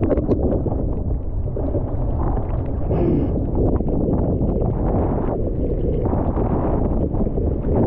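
Wind buffeting the microphone over rushing water, a steady low rumble with a brief hiss about three seconds in.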